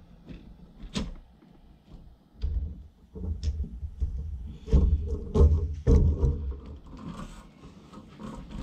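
Hard plastic clicks and knocks of a DeWalt DWV9000 quick-connect dust adapter being twisted and pushed onto a sander's dust port, with a sharp click about a second in and a stretch of low rumbling handling knocks in the middle. The adapter will not lock securely onto this sander.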